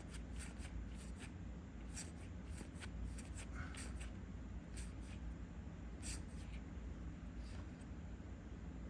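Star Wars Unlimited trading cards being handled and slid one past another: soft, scattered rustles and light ticks of card against card, a few every second.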